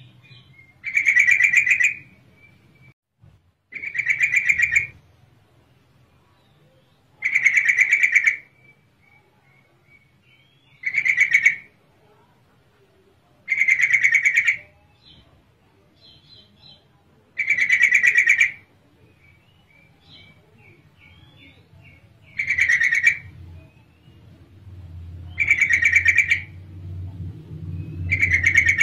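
Yellow-vented bulbul (trucukan) calling, presented as a female's call to draw males into answering: about nine rapid, trilled chattering phrases, each about a second long, come every three to four seconds, with faint short chirps between them. A low hum rises in the background near the end.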